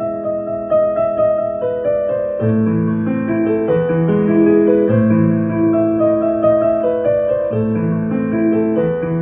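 Background piano music: held notes over chords that change every couple of seconds.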